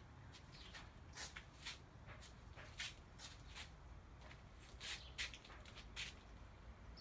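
About a dozen faint, short, high-pitched clicks or chirp-like ticks come at uneven intervals over a quiet steady background.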